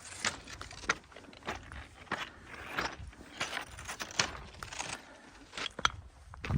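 Footsteps crunching and scuffing on a rocky trail, an uneven run of sharp clicks and grinding steps several times a second.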